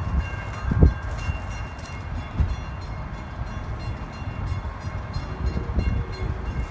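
Diesel-hauled excursion train running slowly: a steady low rumble with a few sudden thumps, the loudest about a second in.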